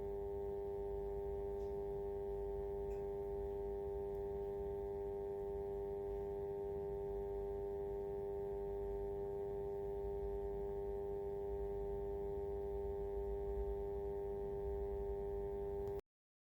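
Loudspeaker giving off a steady, mid-pitched hum with a few overtones over a low rumble, an odd noise from the speaker; it holds unchanged and then cuts off suddenly near the end.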